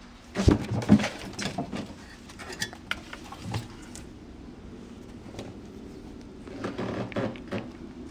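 Sharp clicks, taps and knocks of a puppy's claws and paws on a wooden tabletop, with rustling of bedding: a busy flurry in the first few seconds, the first two knocks the loudest, then a second cluster near the end.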